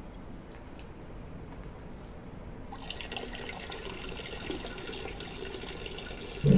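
A urine stream splashing into a toilet bowl, starting about a third of the way in and running steadily. A sudden loud low rumble comes in at the very end.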